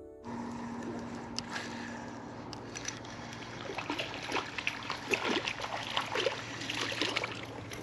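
Canal water splashing and lapping over a low steady hum, with scattered small clicks and ticks that grow busier from about halfway through.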